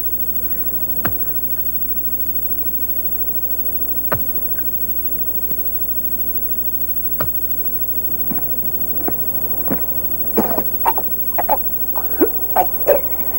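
A steady hiss of old tape, with a few isolated clicks about three seconds apart. Near the end comes a run of short, harsh coughs.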